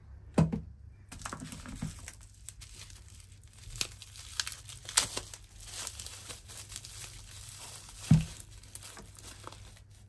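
Bubble wrap crinkling and rustling as a wrapped lock cylinder is pulled out of its plastic packing by hand. There is a dull knock just after the start and another, the loudest sound, about eight seconds in.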